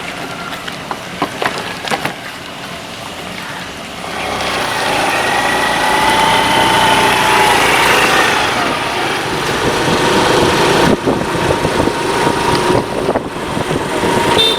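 Road traffic noise: vehicle engines and tyres, getting louder about four seconds in.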